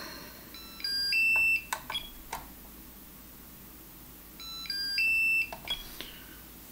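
Ultra Power UP200 Duo hobby charger beeping as its buttons are pressed to stop and restart charging on its two ports. There are two short runs of electronic beeps at a few different pitches, about four seconds apart, with button clicks in between.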